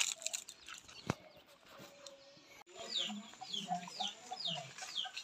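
Chickens clucking, with a run of high, falling chirps about three a second, starting about halfway through after a couple of sharp knocks.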